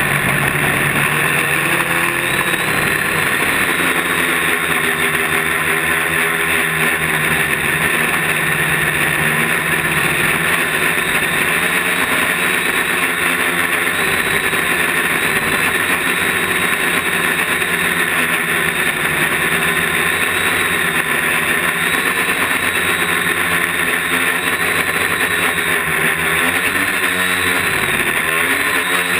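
Quadcopter's electric motors and propellers buzzing steadily, heard close up from a camera mounted on the drone, the whine drifting slightly up and down in pitch as the throttle changes in flight.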